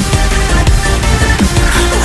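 Electronic dance music with a heavy, regular bass-drum beat and sustained synth tones.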